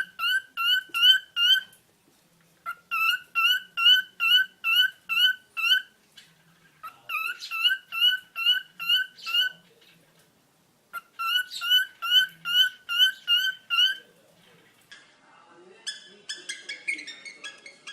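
Cockatiel whistling an imitation of a phone ringtone: quick identical rising chirps, about three a second, in runs of a few seconds with short pauses between them. Near the end it switches to a busier, higher-pitched chatter.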